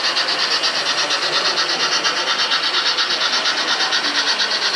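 O-scale model steam train running along the track, giving a steady rasping sound with a fast, even pulse.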